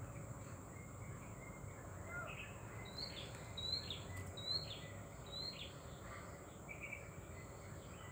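Faint outdoor ambience with a bird calling: four short, high notes, each falling in pitch, about a second apart through the middle, with a few fainter chirps. A steady high-pitched hum runs underneath.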